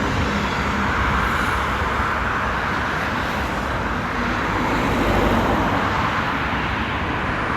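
Steady noise of road traffic, a continuous wash of passing cars that swells slightly in the middle.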